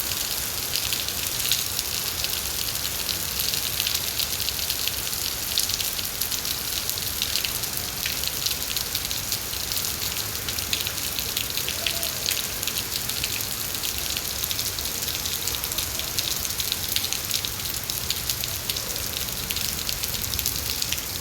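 Steady rain falling, with a dense patter of individual drops hitting a surface over a continuous hiss.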